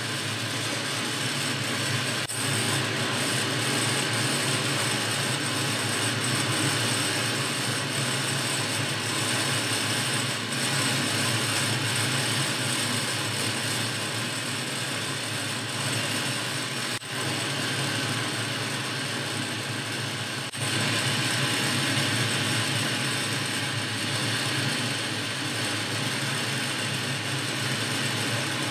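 Boxford metal-turning lathe running under power, its motor and gear train giving a steady hum and whine while the tool takes a light cut on a thin workpiece.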